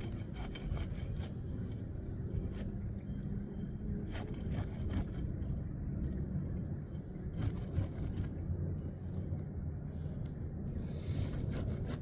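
A hand tool scraping under asphalt shingles, cutting through the tar sealant line to unseal them: a continuous rasping scrape dotted with short ticks and crackles.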